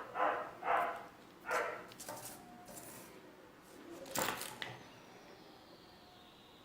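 A dog barking four times in the background, then a sharp snip about four seconds in, scissors cutting paper.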